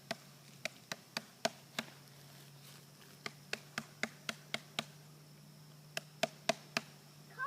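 Honeybees buzzing as a faint, steady low hum, with three runs of sharp taps, about four a second.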